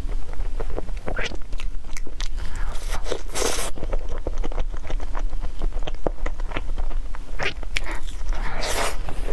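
Close-miked chewing and mouth sounds of someone eating a soft roll cake: many small wet smacks and clicks, with two louder bursts of noise, about three and a half seconds in and again near the end as another bite goes in.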